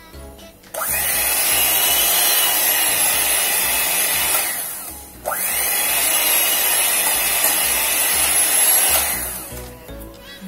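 Electric hand mixer running with its beaters in cake batter, a steady motor whine over a whirring rush. It switches on sharply about a second in, winds down near the middle, starts again at once with a rising whine, and winds down near the end.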